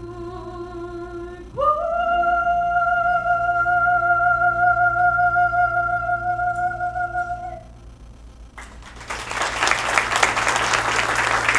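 A woman's solo soprano voice sings a lower note, then leaps up about a second and a half in to a high final note, held with vibrato for about six seconds. After a brief lull, audience applause breaks out and continues.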